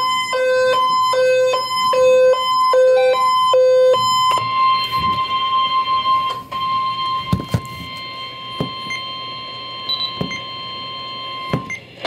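Emergency alert radio alarm: for about four seconds, electronic beeps alternating between a low and a high tone, then one steady alert tone that holds for about seven seconds and cuts off just before the end. The steady tone is the single-pitch warning alarm tone used by NOAA Weather Radio, signalling that an emergency warning message follows. A few faint handling clicks sit under it.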